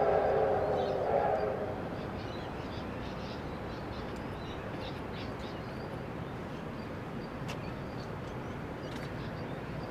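A train whistle's chord fading out about a second and a half in. Then a steady outdoor background with faint bird chirps.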